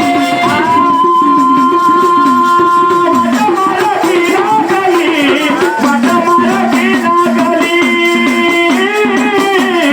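Marathi devotional song to Mahadev: a melody with held and wavering notes over rattling hand percussion.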